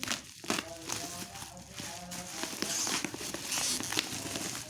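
Packaging being handled during an unboxing: rustling and crinkling with scattered light clicks and knocks, and a louder stretch of rustling between about two and a half and four seconds in.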